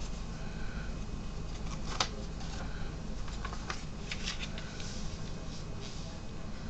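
A sheet of paper being handled and unfolded on a cloth surface: crinkling and rustling, with a sharp crackle about two seconds in and a cluster of crackles and rustles around three to five seconds in.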